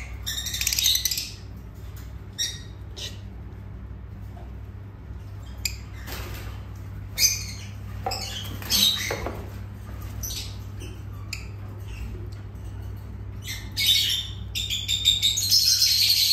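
Several lovebirds squawking and chirping in short, shrill bursts, thickest and loudest near the end, over a steady low hum.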